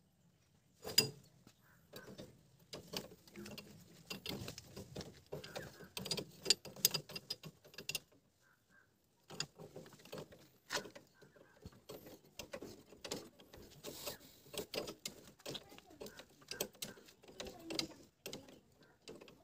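Irregular clicks, clinks and knocks of hand tools and metal parts being handled, from work on a tractor's power-steering cylinder. The sounds come in uneven clusters, with a silent gap of about a second and a half about eight seconds in.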